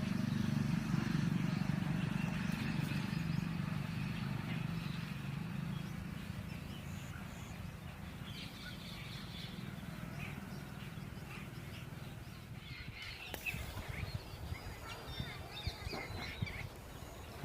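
Outdoor ambience: a low hum that fades away over the first several seconds, then birds chirping in short calls in the second half.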